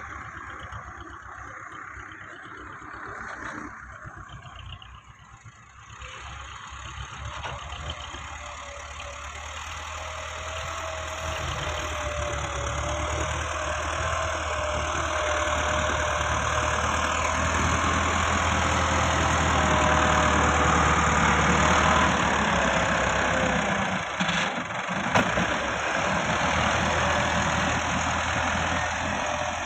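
Farm tractor's diesel engine working under load as it pushes soil with a front-mounted blade, growing louder as it draws close, with a faint wavering whine over it in the middle stretch and a single sharp clank near the end.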